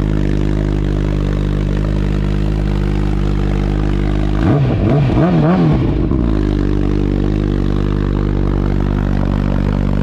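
A 2022 Suzuki Hayabusa's 1340 cc inline-four idles steadily through a Brock's Performance aftermarket exhaust. About halfway through, the throttle is blipped several times in quick succession, and the revs rise and fall before settling back to idle.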